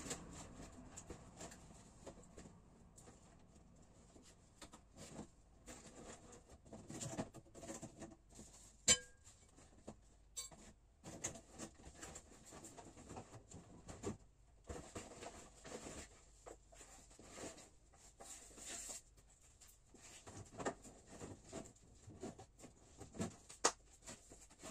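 Rustling and light clattering of bags and assorted clutter being handled and moved about, with a sharp clink about nine seconds in.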